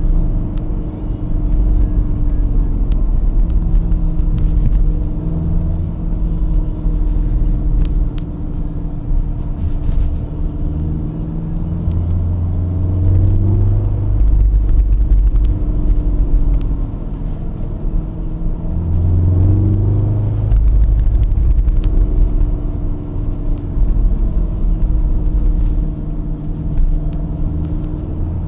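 Volkswagen Golf 7 R's turbocharged four-cylinder engine running as the car drives along, heard inside the cabin. Its steady note shifts in pitch about halfway through and again about two-thirds of the way through. The interior engine sound is partly made by the car's built-in sound generator, which imitates a five-cylinder.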